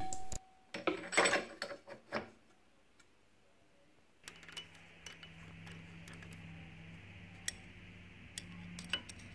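Light metallic clicks and clinks of an aluminium bearing plate and shaft coupling being handled and set in place on top of a milling machine's column: a cluster in the first two seconds, then single clicks. A low steady hum and hiss come in about four seconds in.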